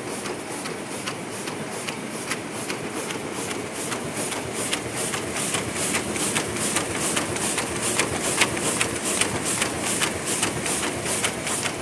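DAKIOU PY-950 roll die-cutting and creasing machine running at its set speed of 150 cuts a minute. Its platen strikes in a steady rhythm of about two and a half strokes a second over a constant mechanical hum, the strokes growing louder about a third of the way in.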